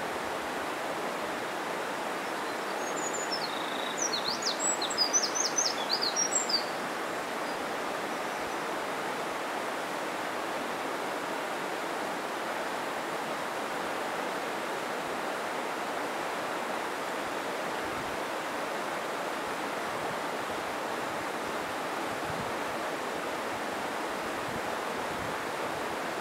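Mountain stream rushing steadily. A bird sings a quick run of high chirps from about three to seven seconds in.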